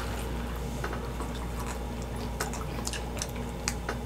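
People chewing pizza close to the microphone: scattered small wet clicks and smacks of mouth sounds over a steady low hum.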